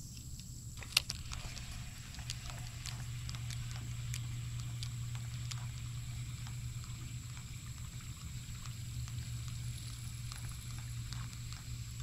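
Casting and retrieving a bass lure on a rod and reel: one sharp click about a second in, then light, irregular ticking as the reel is worked, over a steady low hum.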